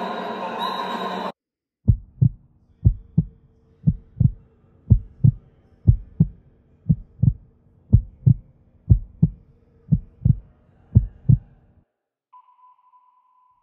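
A loud, dense sound cuts off abruptly about a second in. Then a heartbeat sound effect: ten double thumps, about one a second, over a faint low drone. It stops near the end, and a single steady high tone comes in.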